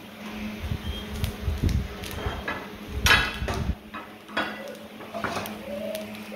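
Dishes and a metal springform pan being moved about on a stone kitchen counter: scattered knocks and a louder clatter about three seconds in, over a steady low hum.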